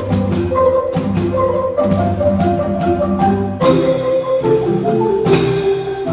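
An ensemble of wooden marimbas playing together, with deep bass-marimba notes under repeating higher lines. Two loud crashes cut through, a little past halfway and again near the end.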